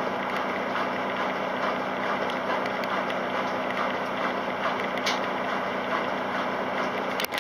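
Kelvinator K605 top-loading washing machine running mid-cycle: an even whooshing noise over a steady low motor hum. The hum cuts off suddenly just before the end.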